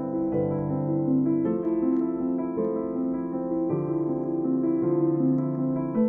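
Background piano music: a slow, gentle melody of held notes.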